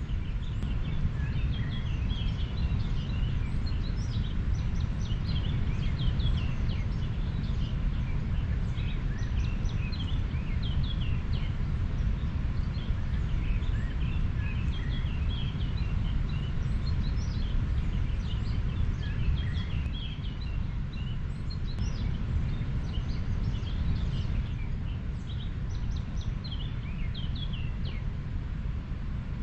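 A river flowing with a steady, deep rush, and many small birds chirping and twittering throughout.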